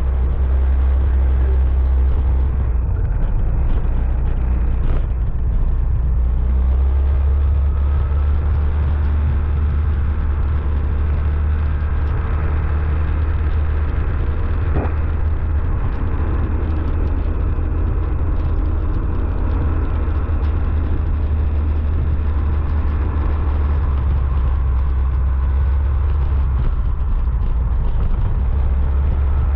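Steady low rumble of a motorcycle on the move, its engine running under the noise of wind on the microphone.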